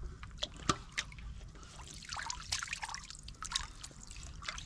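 Water in a shallow pool splashing and trickling in small irregular bursts as hands grope underwater among the stones, with one sharp click under a second in.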